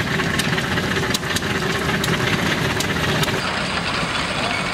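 Small steam locomotive running along the track, a steady mechanical noise with irregular sharp clicks. About three and a half seconds in, the sound changes suddenly to the running of vintage engines driving a hay press.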